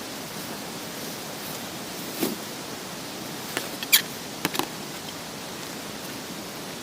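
Steady, even hiss with no pitch, broken by a handful of short, sharp clicks around the middle.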